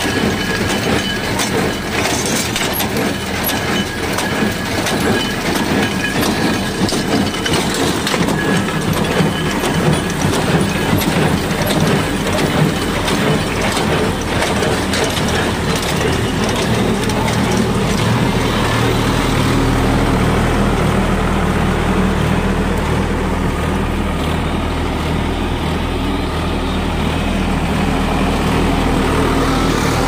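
New Holland BC5060 small square baler running as it bales straw, its feeder and plunger mechanism clattering continuously, driven off the tractor's PTO shaft. The tractor's diesel engine runs steadily underneath and comes to the fore from about two-thirds of the way through.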